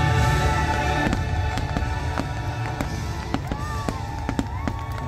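Aerial fireworks bursting: a deep boom at the start, then a quick run of sharp bangs and crackles from exploding shells, over the show's soundtrack music.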